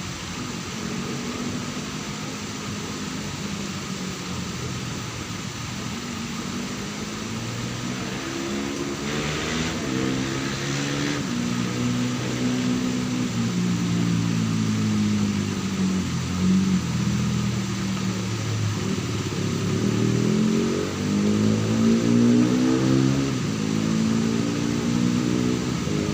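An engine running and revving, its pitch rising and falling repeatedly and getting louder in the second half.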